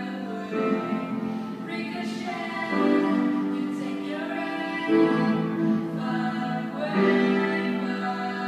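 A woman singing into a handheld microphone over a pop backing track. The chords are held and change about every two seconds.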